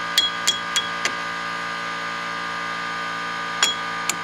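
Sharp metallic taps of the back of a pair of diagonal cutters on a steel cotter pin, driving a reused pin through a castle nut on the axle shaft. There are four quick taps in the first second and two more near the end, over a steady hum.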